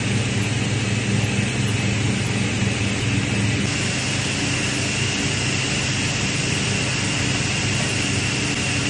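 A workshop power tool's electric motor running steadily with a constant hum and noise, without starting or stopping.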